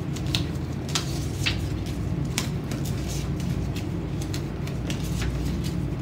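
A strip of paper being folded back and forth and creased by hand: scattered short crisp crackles and rustles, over a steady low hum.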